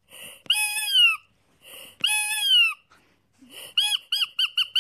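Rubber squeeze toy of Munch's 'The Scream' being squeezed. It gives two long, high squealing wails, each with a short hiss of air just before it. Near the end comes a fast run of short squeaks, about five a second.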